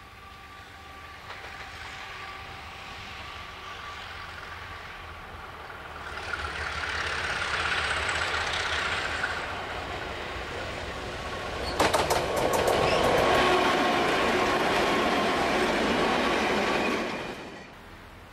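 Australian 48 class Alco diesel-electric locomotive running as it comes through a tunnel towards the listener, growing louder. About 12 s in the sound breaks off suddenly to a louder stretch of several 48 class locomotives rolling past with a freight train, which cuts off abruptly near the end.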